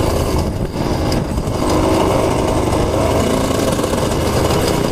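Dirt bike engine running as the bike rides a dirt trail, heard from the rider's helmet camera. The engine eases off for about a second, then picks up again about a second and a half in.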